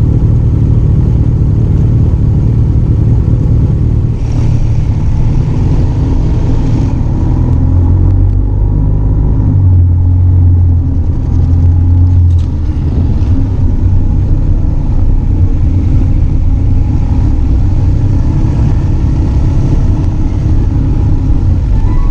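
Motorcycle on the move: steady low wind rumble buffeting the microphone, with the engine running underneath.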